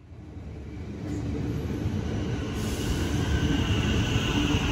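High Capacity Metro Train (HCMT) electric train running. Its rumble fades in at the start, and a high steady electric whine joins about two and a half seconds in.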